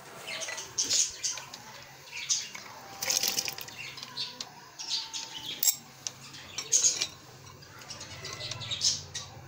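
Chunks of onion, tomato and garlic tipped from a bowl into water in a steel pressure cooker, splashing and plopping in several short, irregular bursts.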